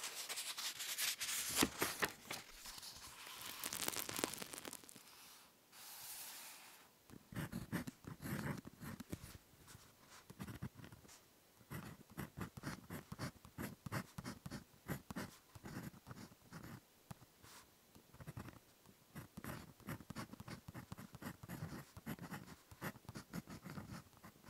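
Ballpoint pen writing on paper close to the microphone. The first six seconds or so are a denser, brighter scratching, and after that come many short separate pen strokes and dots in quick succession.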